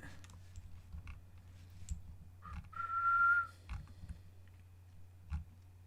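A single short whistled note, held at one steady pitch for under a second about three seconds in, with a few faint clicks around it.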